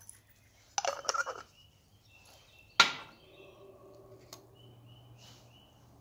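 Old steel nails rattling in a small glass jar and a metal dish about a second in, then one sharp knock near the middle, the loudest sound, as something hard is set down on the wooden workbench.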